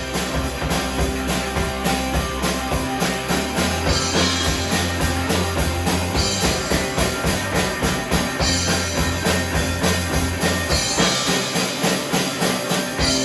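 Live rock band playing an instrumental passage with no singing: a steady, driving drum-kit beat over bass and guitar.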